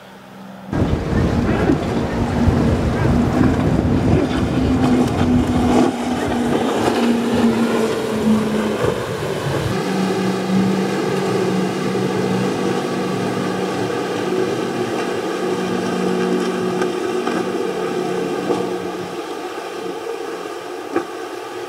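Motorboat engines running at speed, a steady drone with wind buffeting the microphone. About ten seconds in, the wind rumble drops away and a steadier, even engine tone carries on, easing off near the end.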